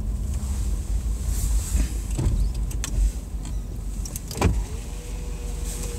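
A car's electric window motor whining steadily as a side window runs, starting about three-quarters of the way in, over the low rumble of the car. It is preceded by a sharp knock.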